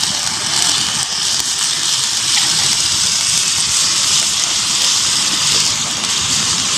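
Beef and its broth sizzling in a hot pan over a wood fire, a steady hiss.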